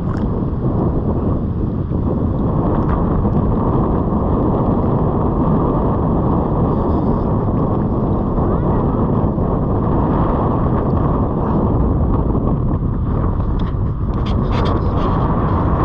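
Wind buffeting the microphone: a steady low rumble, with a few faint clicks near the end.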